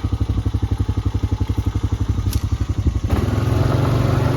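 Small vehicle engine running with a rapid, even putter, then picking up revs and running rougher and louder about three seconds in.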